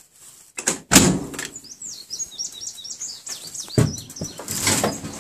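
The door of a 1969 VW Beetle (Baja Bug) clicking open with a loud clunk about a second in, then a bird chirping a quick run of short descending notes, then rustling and light clanks as someone climbs into the driver's seat. The engine is not running.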